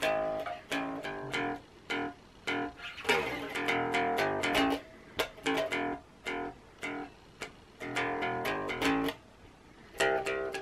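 Electric bass guitar playing a riff of short plucked notes, in phrases with brief breaks between them.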